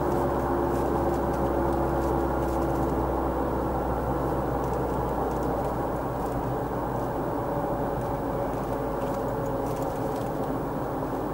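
Steady engine and tyre noise of a car cruising on a paved highway, heard muffled from inside the cabin, with a faint steady hum that fades out about four seconds in.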